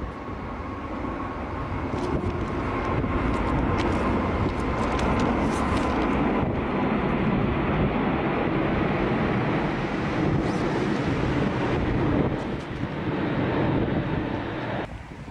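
Airbus A380 jet engines roaring as the airliner passes low overhead during a go-around. The noise builds over the first few seconds, holds steady and loud, then cuts off abruptly near the end.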